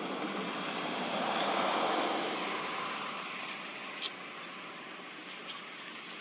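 A steady rushing noise that is louder for the first couple of seconds and then fades, with one sharp click about four seconds in.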